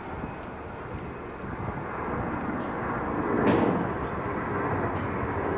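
Jet engine noise of a climbing Airbus A330 airliner: a broad, steady rush that swells louder about halfway through.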